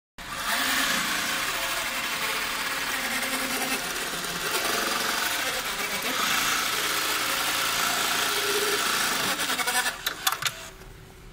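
Post bed roller feed sewing machine running steadily as it stitches leather, followed by a quick run of clicks near the end as it stops.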